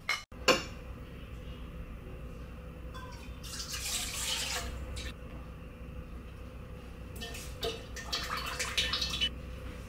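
Dry ingredients poured from a bowl into a stainless steel mixing bowl, then a thin stream of liquid poured into the same bowl. There is a sharp knock about half a second in.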